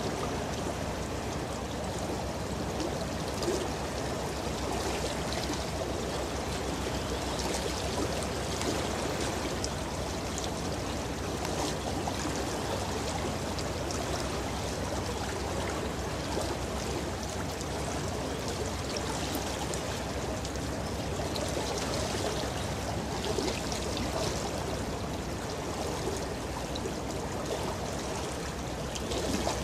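Steady wash of river water lapping and splashing at the shore, with a low rumble underneath.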